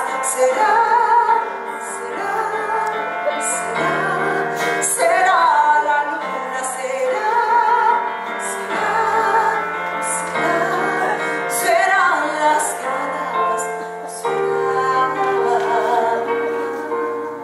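A woman singing with vibrato on long held notes, over sustained instrumental accompaniment with a low bass line.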